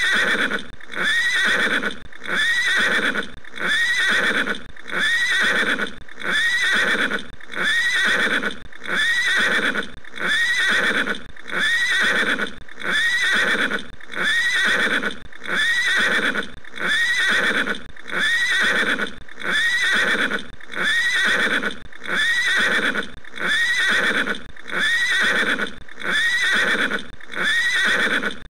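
A short horse neigh repeated over and over, identical each time, a little more than once a second, as a looped sound effect.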